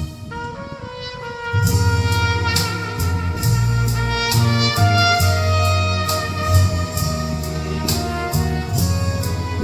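Instrumental music with horn or saxophone melody lines over a bass and drum beat, entering fully about a second and a half in after a soft opening.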